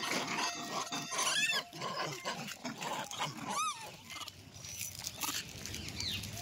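Rhesus macaques feeding on puffed snacks: close crackling and rustling from the food, with two short, high, rising-and-falling squeaky calls about one and a half and three and a half seconds in.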